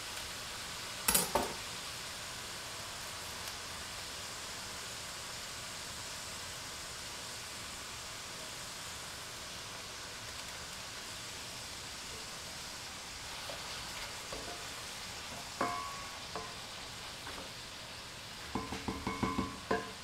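Ground beef sizzling steadily in a cast iron skillet. A sharp knock comes about a second in, and near the end a wooden spoon stirs and scrapes the pan in a quick run of strokes with a ringing, pitched edge.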